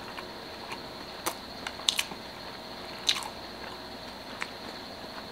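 A person chewing a mouthful of a vegan chick'n patty sandwich on wheat bread: quiet chewing broken by a few short, sharp mouth clicks spread through it.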